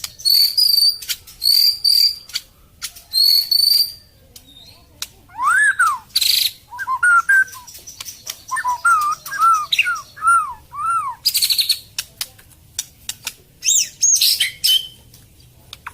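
White-rumped shama (long-tailed murai batu) singing a varied song: short, clear, high whistled phrases, then a quick run of rising-and-falling looped notes, mixed with sharp clicks and a few harsh buzzy notes.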